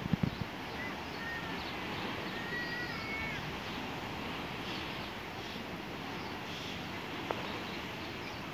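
Open-air ambience: a steady wash of distant noise, with a few short, high, slightly gliding calls in the first few seconds. There are bumps of the phone being handled at the very start.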